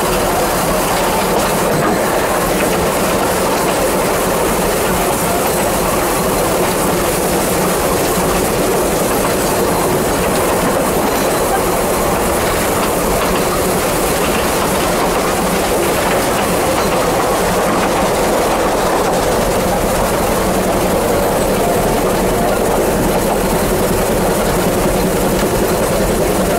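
Steady running noise of a narrow-gauge steam railway carriage travelling along the Vale of Rheidol line: wheels on the rails and the rattle of the moving train, unchanging throughout.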